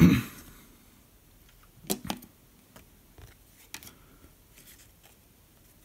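Trading cards handled and set down on a table: a short brushing knock at the start, a pair of sharp clicks about two seconds in, then a few fainter ticks.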